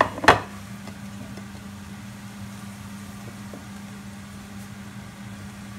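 Two sharp knocks in quick succession as a china plate is set down on a hard kitchen surface, over a steady low hum from a kitchen appliance.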